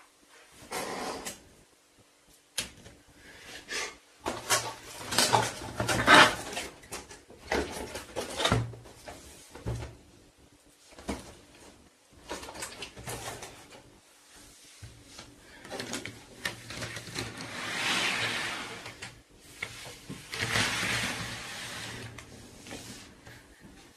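Small plastic Play-Doh tubs clacking and knocking as they are picked up, stacked and set down on a wooden tabletop. Two longer scraping, rustling stretches come in the second half.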